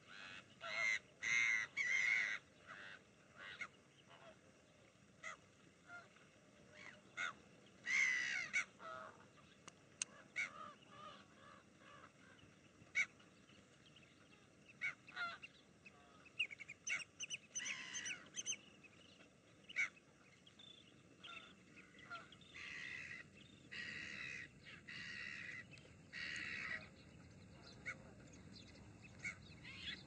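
A flock of gulls calling: harsh, loud cries in irregular bursts over scattered shorter calls. The loudest clusters come right at the start, about eight seconds in, around seventeen seconds in, and in a run of longer calls from about twenty-two to twenty-seven seconds.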